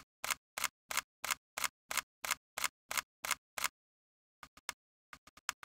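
A clicking sound effect: sharp, evenly spaced clicks at about three a second for some three and a half seconds. After a short pause comes a quick, irregular flurry of clicks near the end.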